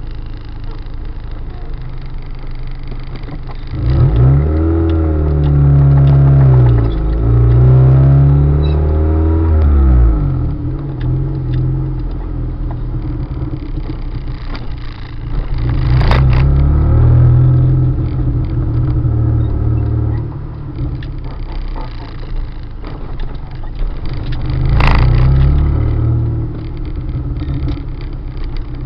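Car on the move: the engine's pitch rises and falls as the car speeds up and slows, over a steady low rumble. There are two sharp knocks, one about halfway through and one near the end.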